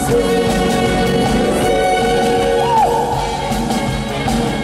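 Upbeat Korean trot song played live by a stage band with keyboards, over a steady dance beat.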